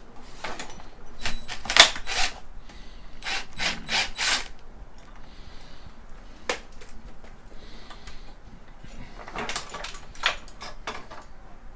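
Hand tools working on a motorcycle's bolts: a ratchet wrench's clicks and metal clinks and knocks in irregular bursts, the loudest about two seconds in.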